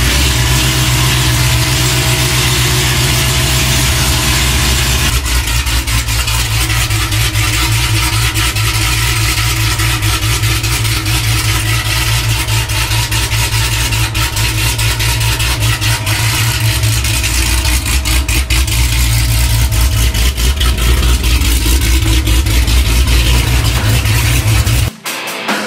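Car engine idling loudly with a choppy, rapidly pulsing exhaust, cutting off abruptly near the end.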